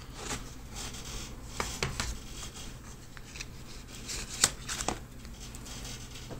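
Hands handling a new smartphone and its packaging: light rustling of plastic with several small clicks and taps, the sharpest about four and a half seconds in.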